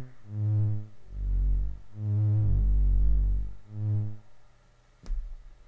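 SOMA Lyra-8 analogue drone synthesizer played by touching its oscillator sensor plates with wet fingers: low droning tones swell in and fade out one after another, with a deeper tone held beneath them in the middle. Near the end there is a click and a brief low note.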